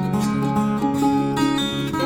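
Background music led by a plucked acoustic guitar, notes changing several times a second over a held low note.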